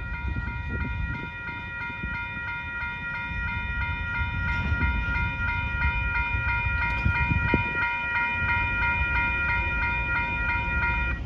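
Railroad grade-crossing bell ringing steadily in rapid, even strokes over the low rumble of a slow-moving train. The bell stops near the end as the crossing gates rise once the train has cleared.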